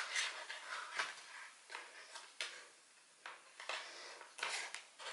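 Foil MRE retort pouch handled and crinkled in the hands: irregular rustling with a few sharp crackles.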